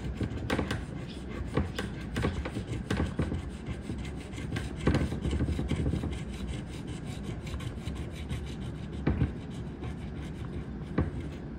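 A coin scratching the coating off a paper scratch-off lottery ticket in quick, repeated scraping strokes.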